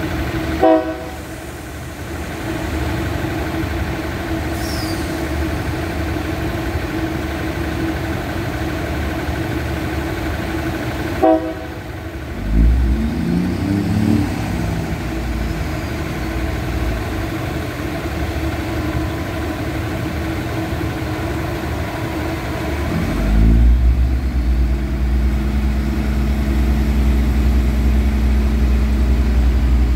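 Diesel multiple unit standing with its engines idling steadily, broken by two very short tooting blasts, one just after the start and one about 11 seconds in. From about 23 seconds in the engine note grows louder and deeper and stays up.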